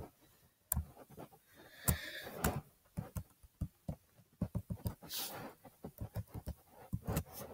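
Laptop keyboard keys tapped as a word is typed, a string of short, irregular clicks.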